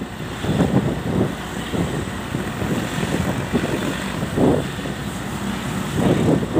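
Wind buffeting the microphone in irregular gusts over the steady low rumble of a vehicle travelling along a street.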